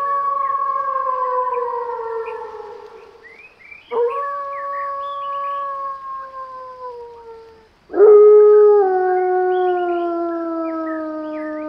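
Wolves howling: three long, slowly falling howls, the loudest starting about two-thirds of the way in and stepping down in pitch just after it begins.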